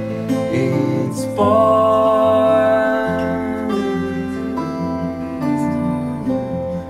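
Live acoustic guitars playing together, plucked and strummed, under a man's singing voice holding a long sustained note that starts about a second and a half in.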